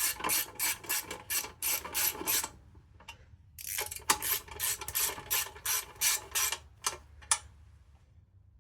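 Hand ratchet wrench clicking in quick back-and-forth strokes, about three a second, in two runs with a short pause between, then two single strokes.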